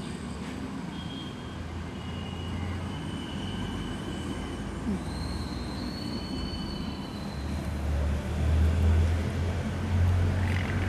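A toy pop-pop (putt-putt) steamboat running with its burner lit. It makes a steady low rumble that grows louder over the last few seconds, with faint high whistling tones above it.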